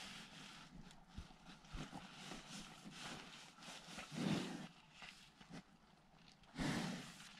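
A cow breathing and sniffing at close range as it noses into a tent, with two louder puffs of breath about four and six and a half seconds in.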